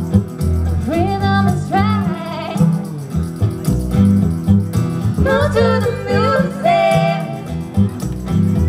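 A live acoustic country-style band playing, with upright bass, strummed acoustic guitar, lap-style slide guitar and tambourine under a steady bass line. Female voices sing a phrase about a second in and another about halfway through.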